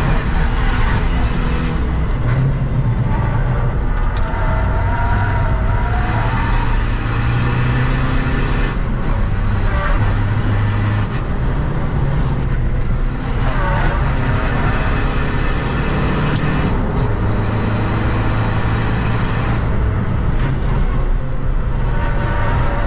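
Seat Ibiza FR's 2.0 TDI common-rail diesel engine heard from inside the cabin under hard driving on track. Its note steps up and down several times as the car accelerates and slows, over continuous road and wind noise.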